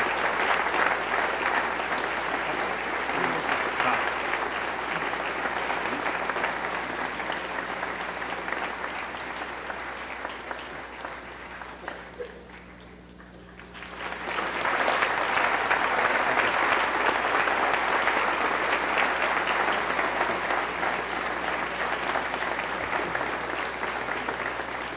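Large audience applauding, a dense sustained clapping. A little past halfway it thins almost away for a moment, then swells back up to full strength.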